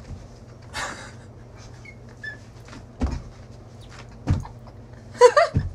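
A few dull low thumps about a second apart over a steady low hum, with a short vocal sound just before the end.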